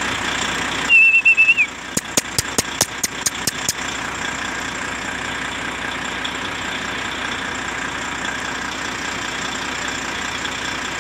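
Steady hum of vehicle engines. About a second in there is a short, slightly wavering high whistle, followed at once by a quick run of about ten sharp clicks.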